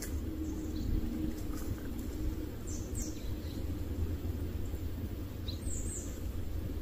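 Outdoor ambience: a steady low rumble with small birds giving a few short, high chirps that sweep downward, a pair about three seconds in and another near the end.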